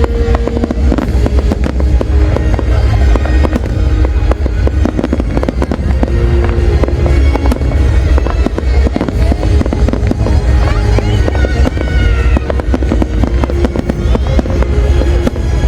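Large fireworks display going off non-stop: a dense, continuous barrage of bangs over a deep rumble.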